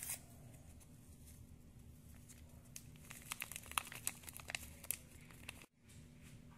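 Foil Sazón Goya seasoning packet crinkling and tearing as it is opened and shaken out over the pot, a flurry of small crackles in the middle few seconds, over a faint steady hum.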